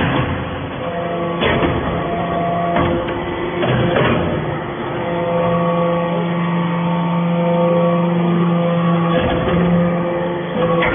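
Hydraulic scrap baler running: a steady machine hum whose tones strengthen and shift as it works, with several sharp metallic clanks.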